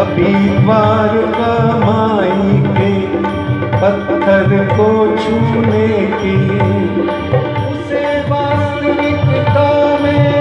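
Live Hindi devotional bhajan: a male vocalist singing a melody to tabla rhythm, with violin accompaniment.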